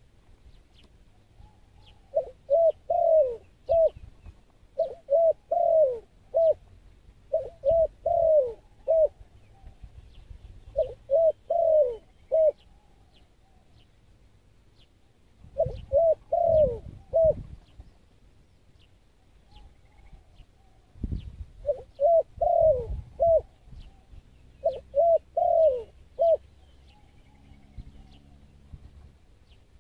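A dove cooing in repeated phrases of four or five quick notes, about seven phrases with short pauses between and a longer gap near the middle.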